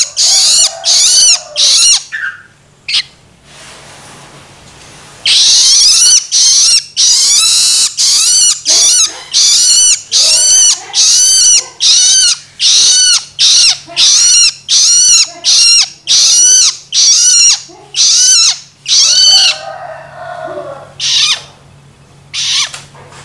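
Juvenile long-tailed shrike (cendet) giving loud, harsh begging calls (loloan), repeated about one to two a second. After the first few calls there is a pause of about three seconds, and the calls thin out to a few spaced ones near the end. These are a fledgling's food-begging calls.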